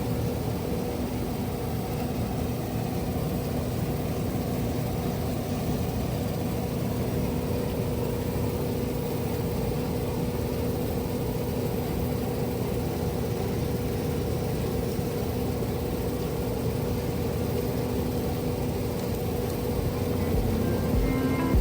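Heavy farm machinery running steadily: an even engine noise with a constant low hum.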